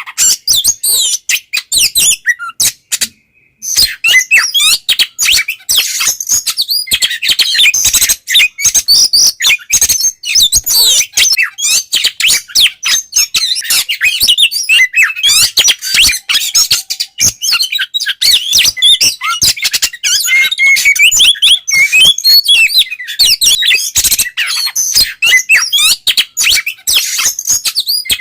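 Oriental magpie-robin (kacer) singing its full, open 'ngeplong' song, the loud kind that keepers play to rouse other magpie-robins to sing. It is a dense, unbroken run of quick chirps and whistles, with a short pause about three seconds in.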